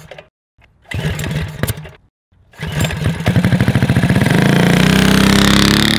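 Engine running in two short bursts of firing pulses, each cut off by silence. Then it runs again and revs up, its pulses merging into a rising drone that is held near the end.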